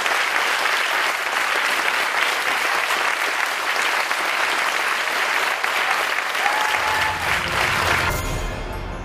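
Audience applauding, dense and steady. A low beat of music comes in under it near the end, and the applause cuts off suddenly about eight seconds in.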